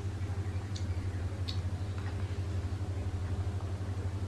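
A steady low hum, with two faint short clicks from eating by hand in the first second and a half.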